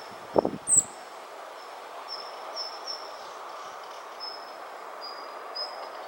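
Strong wind gusting against the microphone in a few low buffets during the first second, then steady outdoor hiss. A thin, high, on-and-off trill runs through it, with one short high chirp near the start.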